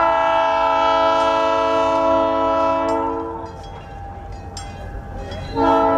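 Train horn sounding, several notes at once: one long blast of about three seconds, then a second blast starting near the end.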